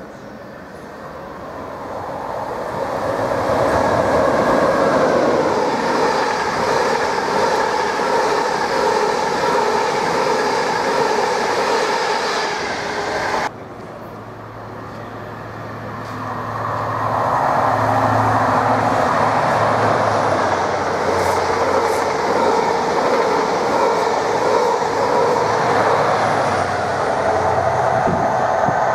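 Express train led by a Class 91 electric locomotive passing through at speed, its wheel and rail noise building over the first few seconds and staying loud, then breaking off suddenly about 13 seconds in. After a short lull an InterCity 125 with a Class 43 diesel power car approaches, a steady low engine hum under rising wheel noise that stays loud to the end.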